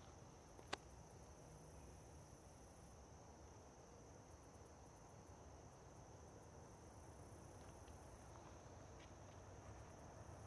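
Near silence with the faint, steady high chirring of crickets, and a single sharp click about a second in. Near the end a low rumble from an approaching train begins to build.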